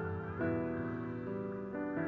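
Gentle instrumental background music with held notes, piano and guitar.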